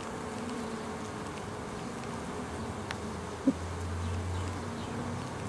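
Honeybees buzzing in a steady hum of wingbeats. About three and a half seconds in comes a short knock, and a lower hum joins after it.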